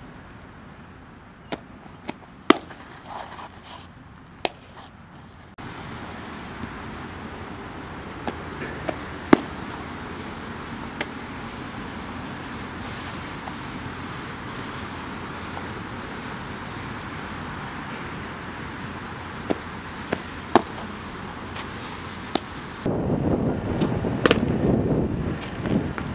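A softball popping into a catcher's mitt again and again, a dozen or so sharp, separate smacks with gaps of seconds between them, over steady outdoor wind hiss. Near the end, wind buffeting the microphone becomes the loudest sound.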